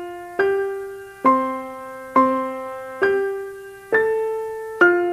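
Music: a keyboard playing a slow melody of single notes, about one a second, each struck and left to ring and fade.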